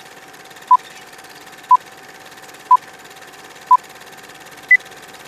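Old-film countdown leader sound effect: a short beep once a second, four times, then a single higher beep a second later, over a steady faint tone and a hiss of film crackle.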